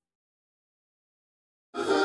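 Dead silence, then a music track starts abruptly near the end with loud, sustained chords.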